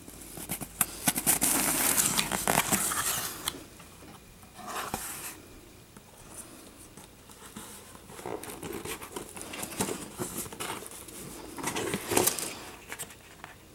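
A cardboard subscription box being opened and handled by hand, the lid coming off. The rustling and scraping comes in bursts, loudest in the first few seconds and again near the end.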